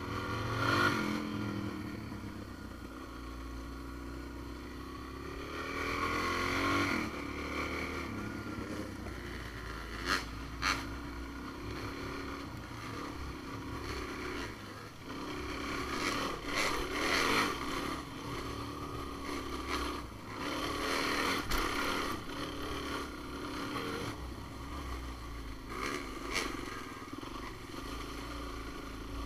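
Off-road vehicle engine running as it climbs a trail, its pitch rising and falling with the throttle. A few sharp knocks come through, two close together around ten seconds in and one more near the end.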